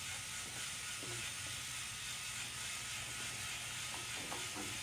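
Small electric motors and gears of a remote-controlled tracked robot running steadily as it drives and works its bucket arm.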